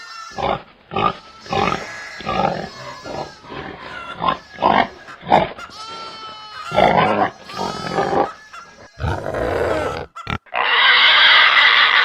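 Pigs grunting and squealing in short, irregular calls, ending in one long, loud, harsh call about a second before the end.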